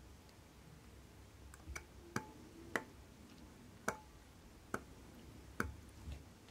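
Light, sharp metal clicks, about six at uneven intervals, some with a brief ring, from a watchmaker's screwdriver working the screws of an Omega Caliber 1250 tuning-fork watch movement.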